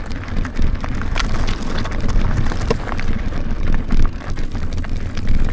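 Wind buffeting the microphone over a continuous rumble and rattle of a mountain bike rolling down a rough, stony track, with many small crackles and knocks from the tyres and frame.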